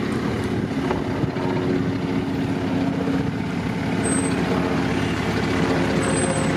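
A vehicle's engine running steadily, a constant drone with a low hum.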